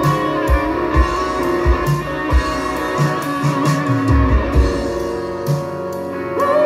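Live rock band playing an instrumental passage: electric guitar lines with bent notes over bass, a steady kick-drum beat and cymbals. Near the end a guitar slides up into a long held note.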